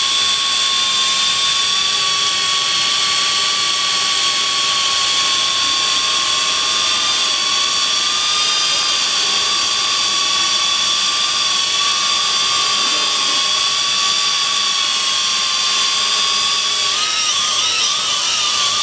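XK X300 quadcopter's four motors and propellers whining steadily as it hovers, held in place by its optical-flow positioning. Near the end the pitch starts to waver up and down as the motors change speed.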